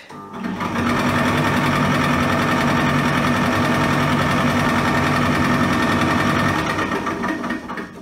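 Hotpoint Ultima condenser tumble dryer starting up and running with a fast, even scraping rhythm over its motor hum. It dies away near the end as it is paused. The owner suspects a worn idler pulley on the drum belt.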